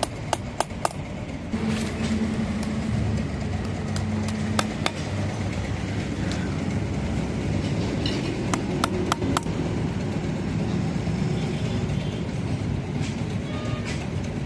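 Steady low mechanical rumble, like a vehicle engine running, with scattered sharp clicks and knocks, a quick cluster of them a little past halfway.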